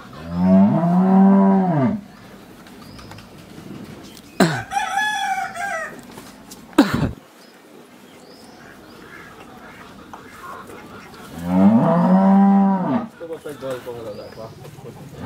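Cattle mooing twice, one drawn-out call near the start and another near the end. In between a rooster crows once, followed by a single sharp knock.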